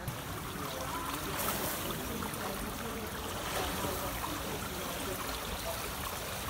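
Water splashing and sloshing in an indoor swimming pool as a person moves through it, a steady noisy wash with the echo of the pool hall.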